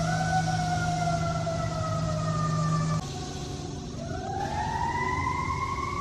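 A siren wailing in slow glides: its pitch sinks gradually, then about four seconds in it rises again and holds high. A low steady hum under it cuts off suddenly about three seconds in.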